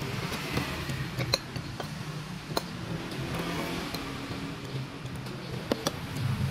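Metal spoon clinking against ceramic bowls several times while scooping food, over a steady low hum.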